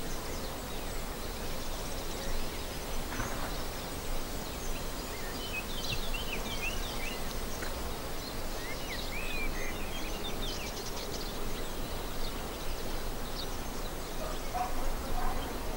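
Steady background noise of a grove, with birds chirping now and then, most of the chirps in the middle stretch.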